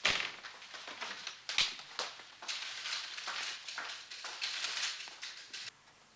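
Continuous rustling and crackling with many small clicks, broken by a sharp knock at the start and another about a second and a half in; it cuts off just before the end.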